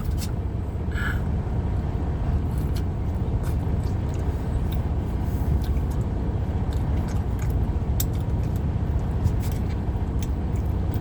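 Steady low rumble of a car running, heard from inside the cabin, with scattered faint clicks and soft chewing.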